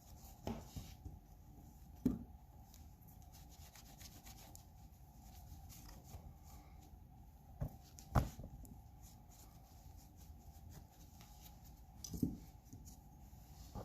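Faint rubbing of a cloth rag wiping factory oil off the inside of folding-knife handle scales. A few short, light knocks come through, about one every two to four seconds.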